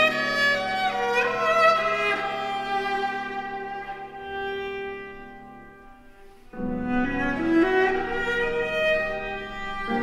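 Viola and piano playing a slow, sustained passage of modern classical music. The bowed notes and piano die away to a near pause about five seconds in, and both come back in strongly at about six and a half seconds.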